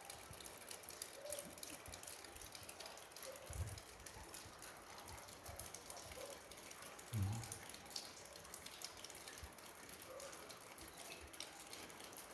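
Meltwater dripping from rock and ice: many faint, scattered drips, with a soft low thump about three and a half seconds in and another about seven seconds in.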